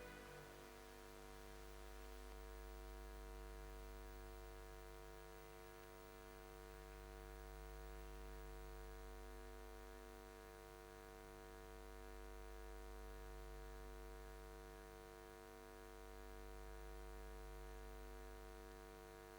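Faint steady low hum with a stack of pitched overtones, swelling and fading gently about every five seconds.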